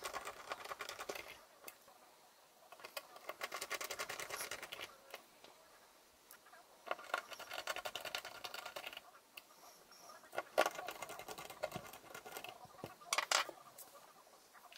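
A small screwdriver driving screws back into the base of a GK Mini mini PC: several bursts of rapid fine clicking and scraping, each lasting a second or two with short pauses between. The sharpest come about ten and thirteen seconds in.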